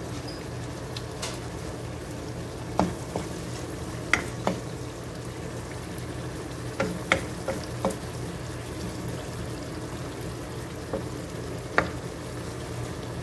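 Onion, garlic and ginger sautéing in oil with chicken strips in a wok: a steady sizzle, with a wooden spoon scraping and knocking against the pan now and then as it is stirred.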